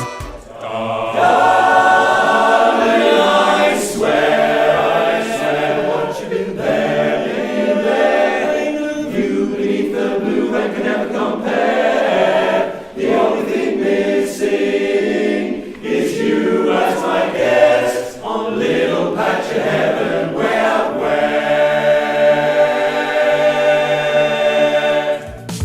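A choir singing in several voices, with no beat or bass underneath.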